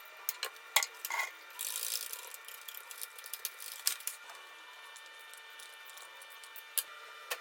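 Light clicks and clinks of kitchen utensils and dishes being handled while mixing a microwave mug cake, several in the first two seconds and a few more later, over a faint steady hum.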